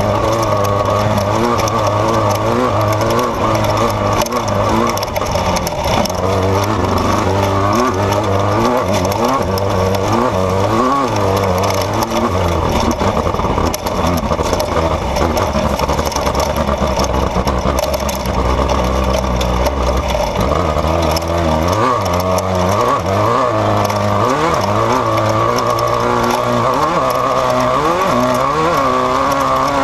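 Off-road desert race vehicle's engine running hard under constantly changing throttle, its pitch rising and falling again and again, over a steady rush of wind and terrain noise.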